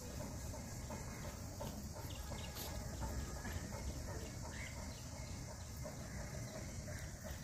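Faint outdoor ambience: a steady low rumble, with a few faint, scattered bird calls.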